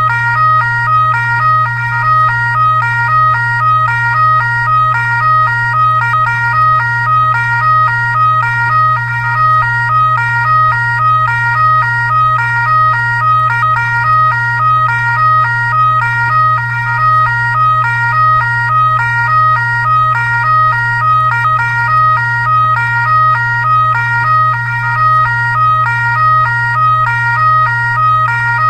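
Electronic siren sounding a rapid, unchanging alternating-tone pattern over a constant low hum.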